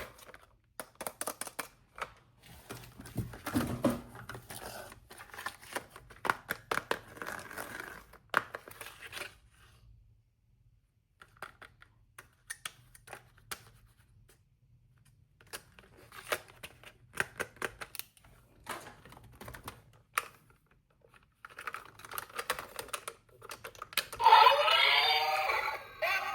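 Plastic packaging being handled and opened: crinkling, tearing and quick small clicks in uneven spurts, with quiet gaps. About two seconds before the end, electronic music with a synthetic singing voice starts.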